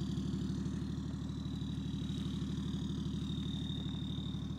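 BMW e39 530d's M57 straight-six turbodiesel idling, a steady even low pulsing with a faint thin high whine above it.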